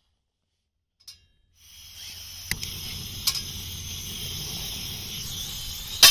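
Portable camping gas stove hissing steadily with the gas on, starting after about a second and a half of silence, over a low rumble, with a few sharp clicks, the loudest near the end.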